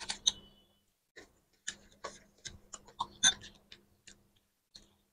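Eating sounds: scattered soft clicks and wet smacks of chewing and of fingers mixing rice, curry and grilled fish on a plate. There are a dozen or so, irregularly spaced, and the loudest come near the start and about three seconds in.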